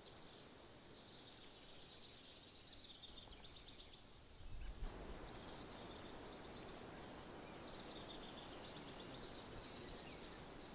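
Faint birdsong: a bird repeats short phrases of quick, high chirps several times over a low outdoor hiss. The hiss grows a little louder about five seconds in.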